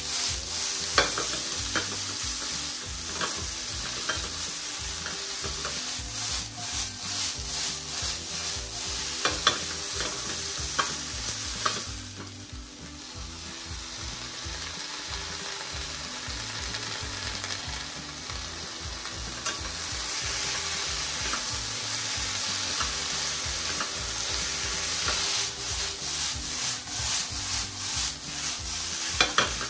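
Konjac strips, green peppers and red bell pepper sizzling in oil in a frying pan, tossed and stirred with chopsticks, with scattered clicks of chopsticks against the pan. About twelve seconds in the sizzle drops and softens for several seconds while julienned bamboo shoots are tipped into the pan, then picks up again.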